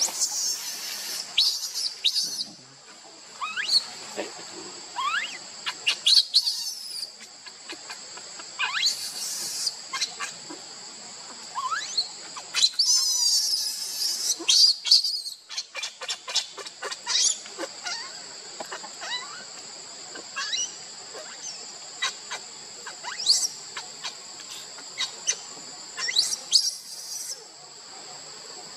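Infant macaque crying in many short, high, rising squeals and chirps, breaking into harsher screams about a second in, around nine seconds, from about thirteen to fifteen seconds, and again near the end, as its mother handles it. A steady high insect drone carries on underneath.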